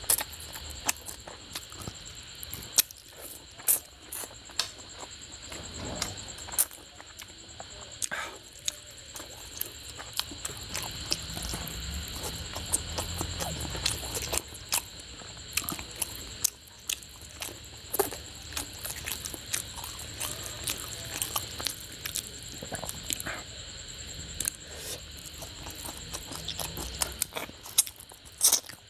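Close-miked eating by hand: fingers squishing and picking through a curried whole fish and rice, with wet chewing and frequent irregular lip smacks and clicks.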